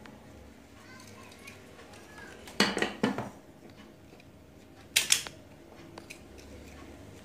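Self-adjusting wire stripper squeezed on a thin insulated wire, its jaws snapping shut and springing open: two sharp double clicks about two seconds apart, with faint handling noise between.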